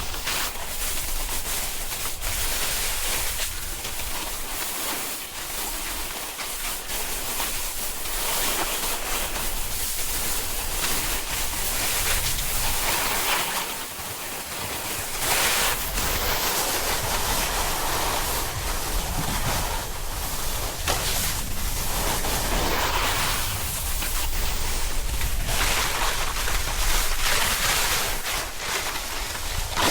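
Snowboard sliding and carving on snow, a hissing scrape that swells and eases with each turn, with wind rumbling on the microphone.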